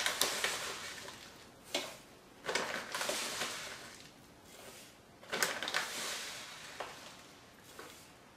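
Spoonfuls of dry chia seeds tipped into a plastic blender jar: three rustling, hissing pours that each trail off, with a few light clicks of the spoon and jar between them.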